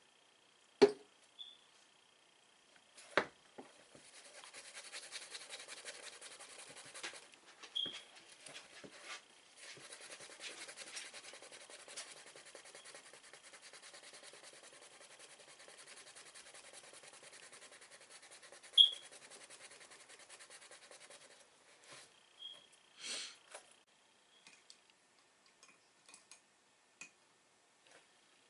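Leather of an Air Jordan 7 sneaker being rubbed by hand with nail polish remover, a steady scrubbing of quick strokes, as the shoe is prepped for custom paint. A few sharp knocks sound about a second in, at about three seconds and near nineteen seconds.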